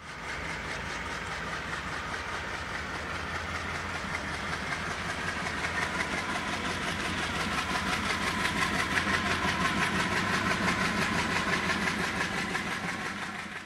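ALCO WDG-3A diesel locomotive's turbocharged 16-cylinder engine working hard under load as it hauls a train away, a deep drone with a steady whine above it. It grows louder about halfway through.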